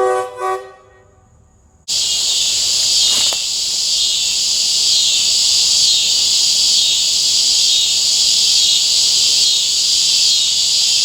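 A locomotive air horn's chord ends with a short final toot in the first second. After a brief hush, a loud, steady chorus of insects chirring fills the rest, swelling about once a second.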